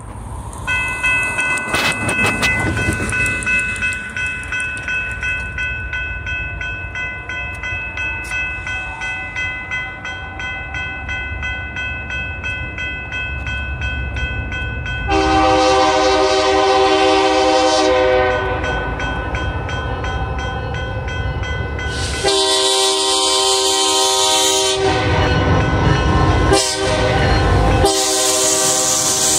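Approaching BNSF diesel freight locomotives rumbling closer while the lead unit's air horn blows a long, a long, a short and a final long blast, the grade-crossing signal. The horn gets louder as the train nears.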